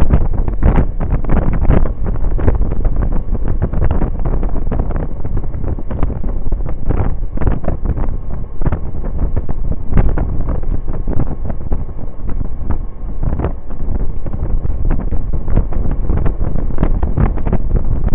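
Wind buffeting the microphone of a camera on a moving scooter at road speed: a loud, steady rumble with constant crackling gusts.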